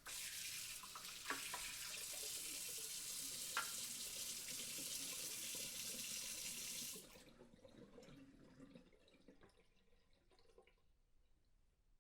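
Water running from a kitchen tap into a sink with a couple of small clicks, cut off abruptly about seven seconds in, then fainter trickling and drips that die away.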